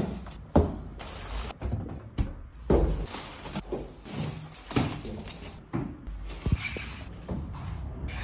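A series of irregular knocks and thumps, about one every half second to a second, like doors or objects being moved and set down.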